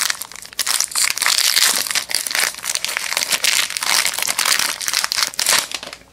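A foil trading-card pack wrapper (2016 Panini Contenders football) being torn open and crinkled by hand, a dense run of crackling that stops near the end.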